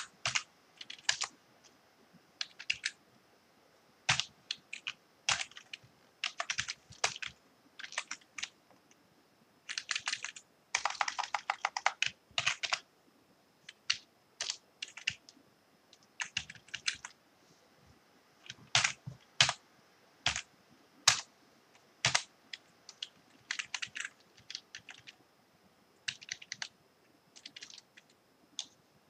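Computer keyboard typing in irregular bursts of quick keystrokes with short pauses between them, the densest run about ten to thirteen seconds in.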